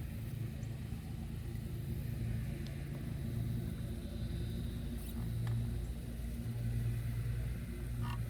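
Battery-powered electric boat motor running steadily with a low hum, its battery running down and losing power.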